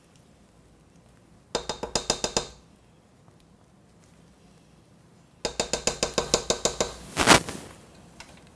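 Spatula rapped quickly against a stainless-steel stand-mixer bowl to shake off sour cream: two runs of rapid ringing metallic taps, about ten a second, then one harder knock near the end.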